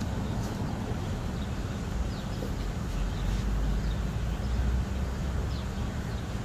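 Steady low background hum and noise, with a few faint short high chirps now and then.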